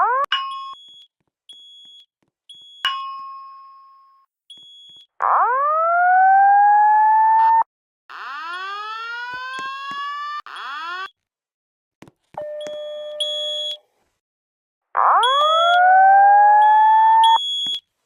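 Fire alarm signals cycling through different tones with brief silences between them: a tone that rings out and fades, two slow whoops rising in pitch, a run of quicker rising sweeps and a short steady tone, with short high beeps in between.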